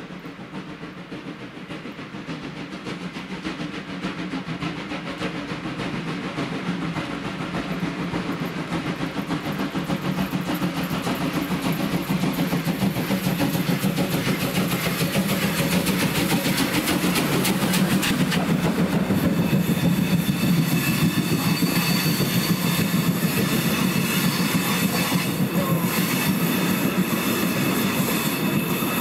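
Two steam locomotives, class 50 No. 50 3648 and class 52 No. 52 8141, working up a grade side by side, their chuffing and running noise growing steadily louder as they approach. From about two-thirds of the way through, a high wheel squeal joins in.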